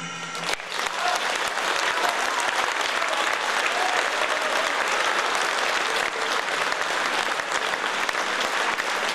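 The last held orchestral note dies away in the first half second, then an audience breaks into steady applause.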